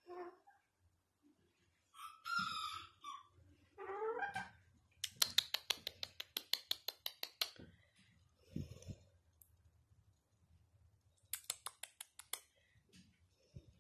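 A silkied Serama hen giving a few short clucks and a rising squawk, with two quick runs of sharp clicks about six a second, one in the middle and a shorter one near the end.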